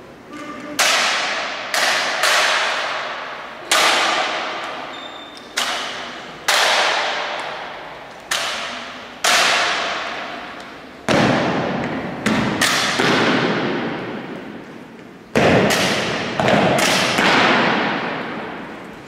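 Legionnaires' rifle drill: a series of about fifteen sharp cracks and thuds of rifles being slapped and grounded and boots stamped, some in quick pairs, at irregular intervals. Each strike rings on in a long echo off the church's marble floor and walls.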